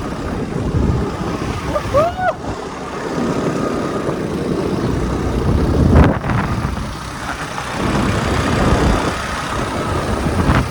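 Engine and rushing wind noise of a moving motorbike, with wind buffeting the microphone. A short rising-then-falling squeak comes about two seconds in, and a single knock comes about six seconds in.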